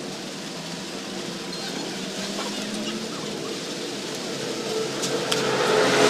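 A motor vehicle's engine running steadily in the background, growing louder toward the end as it comes close.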